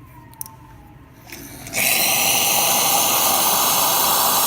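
Pasquini Olivia 90 espresso machine dispensing hot water from its wand: after a couple of small clicks, a loud, steady hiss of hot water and steam starts about two seconds in. It is a good flow through the hot water line that had been badly clogged and was cleaned out.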